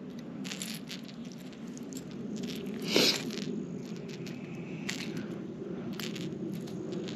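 Metal fishing pliers unhooking a hard-plastic lure's treble hooks from a small perch: scattered clicks and scrapes of metal on hook and lure, the loudest a sharp click about three seconds in.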